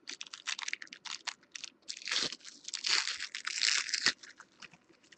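Foil wrapper of a trading-card pack crinkling and tearing as it is ripped open by hand. A run of crackles grows denser and louder in the middle.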